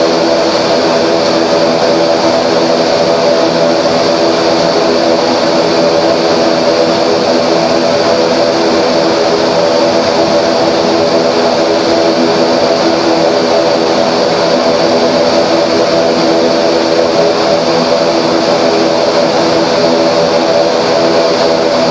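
ATR 42's twin turboprop engines and propellers heard from inside the cockpit: a steady drone made of several steady tones over a hiss, as the aircraft rolls along the runway.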